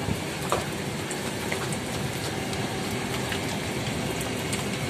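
Heavy rain falling steadily, with scattered sharp drop taps close by.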